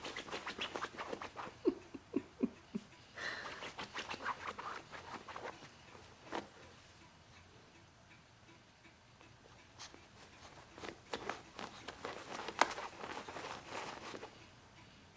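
Lhasa Apso puppy playing with a person's trouser leg on carpet: scuffling, fabric rustling and many small clicks, coming in spurts with a quieter stretch in the middle.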